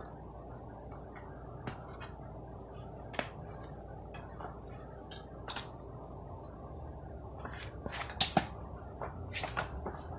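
Scattered light clicks and knocks from a home weight bench and its metal parts as a person settles face-down onto it, with a pair of sharper metallic clinks about eight seconds in. A steady low hum runs underneath.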